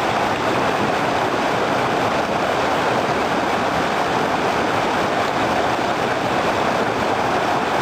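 Waterfall rushing steadily, an even, constant noise of falling water.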